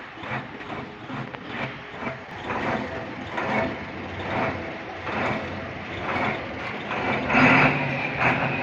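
Repeated rhythmic strokes of a hand tool working on truck brake parts, about two to three a second, getting louder near the end.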